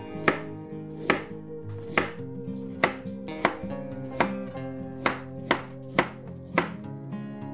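Chef's knife slicing raw white radishes on a wooden cutting board. Each cut ends in a sharp knock of the blade on the board, about one to two a second at a slightly uneven pace.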